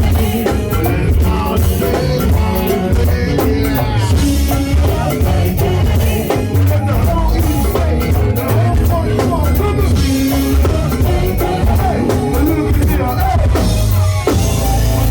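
Go-go band music: a continuous funk groove on drum kit and percussion over a heavy bass line.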